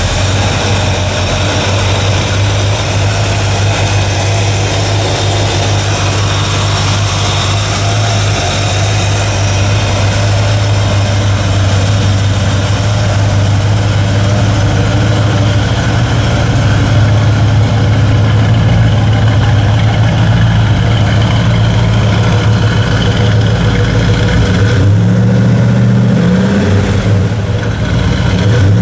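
350 cubic inch GM crate V8 with a four-barrel Edelbrock carburetor, idling steadily just after being started. Near the end the revs rise briefly and drop back to idle.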